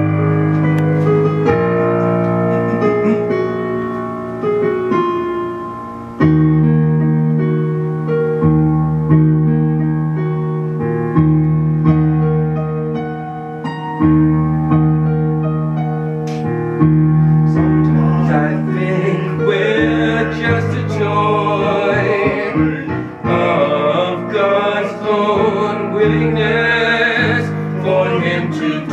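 Electric keyboard playing slow, held chords over a bass line that steps to a new note every second or two. About two-thirds of the way through, singers come in with voices that waver with vibrato over the chords.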